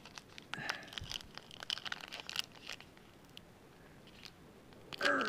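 Paper wrapper of a baseball trading-card pack crinkling and tearing as it is opened by hand, with the cards rustling as they are pulled out; irregular rustles through the first three seconds, then it quiets.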